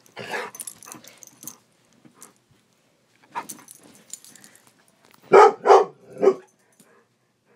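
A dog barking during play: three loud barks in quick succession about five seconds in, after quieter, shorter noises.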